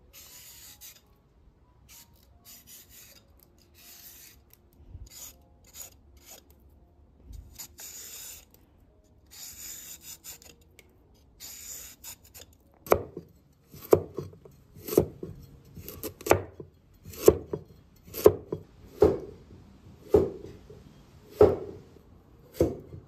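Scrubbing and scraping a cooking pot crusted with dried rice water, in short rasping strokes. Then about ten heavy knocks, roughly one a second.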